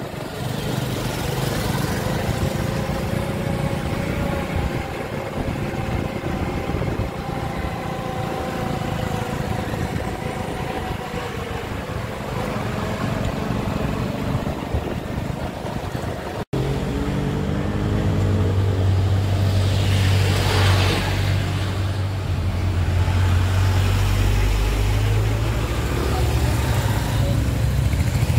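Vehicle engine and road noise while driving, steady throughout. It breaks off suddenly about two-thirds of the way in and resumes as a deeper, louder engine sound.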